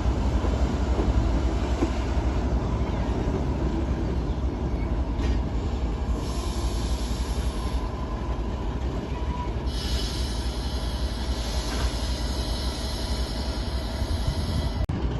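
Freight train wagons rolling past with a heavy low rumble; high-pitched wheel squeal sets in about six seconds in and grows stronger from about ten seconds on.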